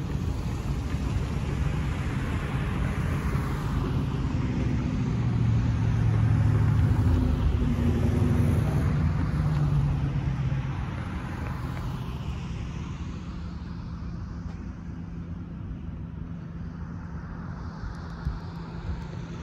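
Cars and SUVs driving across a railroad crossing one after another, engines and tyres passing close by. It is loudest about six to ten seconds in, then eases to quieter passing traffic.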